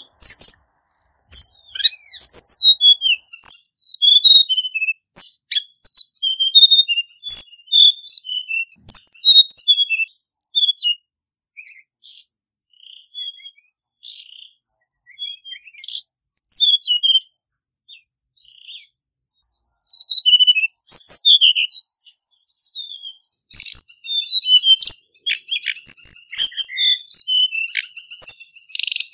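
Male hill blue flycatcher singing: phrases of quick, high, sweet notes that dip and rise, one phrase after another with short pauses, thinning out for a few seconds in the middle before growing dense again.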